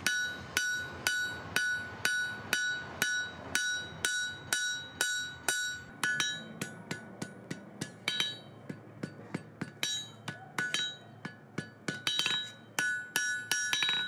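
Hand hammer forging a red-hot wrought iron spoon bowl on an anvil. The blows come steadily about two a second, then quicker and more uneven, with lighter taps mixed in, from about six seconds in. Each blow leaves a bright ringing from the anvil.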